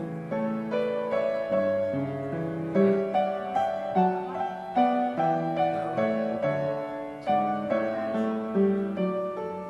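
Background instrumental music: a flowing melody of evenly paced struck, ringing notes over a lower accompaniment.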